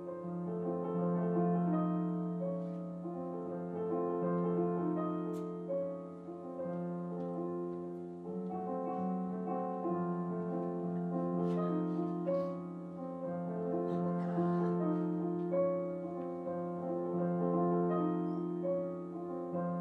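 Piano music: a melody of sustained notes over a steady low note.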